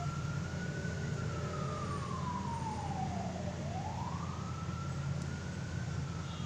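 A siren wailing, its pitch rising and falling slowly, about one full sweep every three to four seconds, over a steady low hum.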